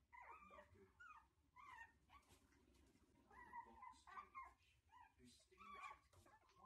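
Shih Tzu puppies whimpering and yipping: a faint string of short, high whines with bending pitch.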